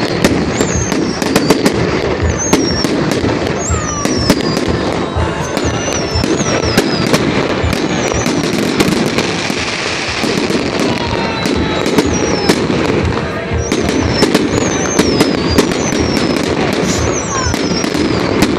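Fireworks salute going off: a dense, continuous run of sharp bangs and crackles, with high whistles that fall in pitch again and again.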